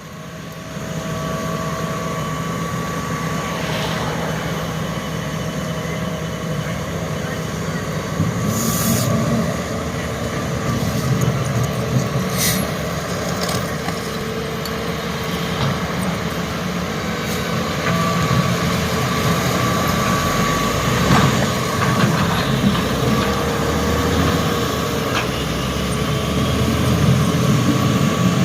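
Heavy construction machinery with diesel engines running steadily, the engine rumble growing heavier in the second half. There is a short hiss about nine seconds in and a sharp knock about twelve seconds in.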